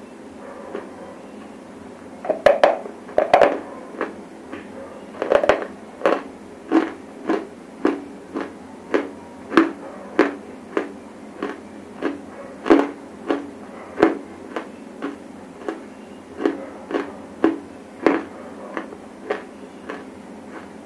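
Dry grey clay being chewed right at the microphone: sharp, dry crunches at a steady chewing rhythm of a little under two a second, starting about two seconds in.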